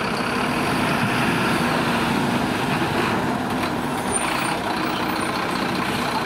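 Fire truck's engine running steadily.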